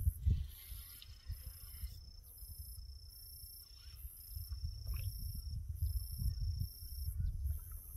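Wind buffeting the microphone in low gusts, over a rapid, even high pulsing of insects. A thin high whine comes and goes in four stretches of about a second and a half each while the fishing line is being reeled in.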